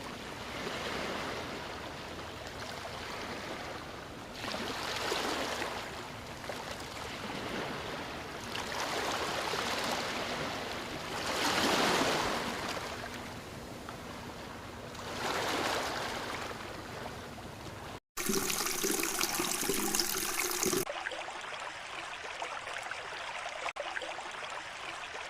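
River water flowing and splashing, swelling and easing every few seconds. About eighteen seconds in there is a momentary dropout and a switch to a different-sounding stretch of running water, brighter and hissier at first.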